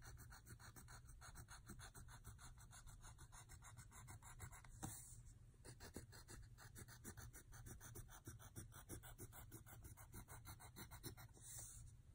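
Faint scratching of a wooden pencil on paper, in quick, even back-and-forth strokes as a zigzag row of teeth is drawn.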